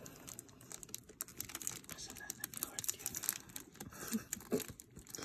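Fingers handling and prying at a lidded paperboard gift box, with faint irregular scrapes, rustles and small clicks of the card.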